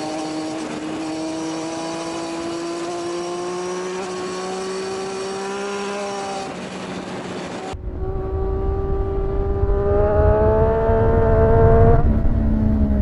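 Sport motorcycle engine heard from the rider's own bike, pulling steadily with its pitch slowly rising. In the second half low wind rumble joins it, the engine climbs higher and louder, and its pitch drops near the end.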